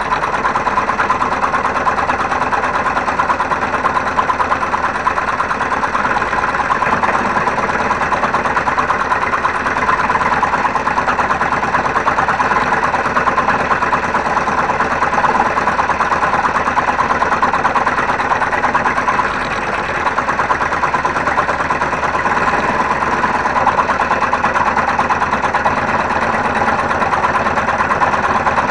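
Homemade scroll saw running steadily, its blade stroking up and down fast as it cuts a wooden board.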